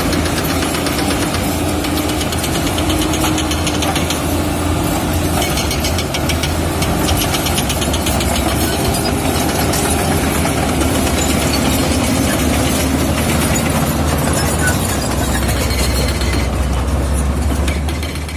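Komatsu D85 bulldozer's diesel engine running steadily under load, with a fast rattling that comes and goes.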